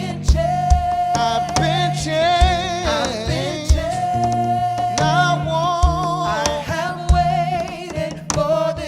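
Live gospel worship music: a singer holds long notes with vibrato over a band with bass and a steady kick drum.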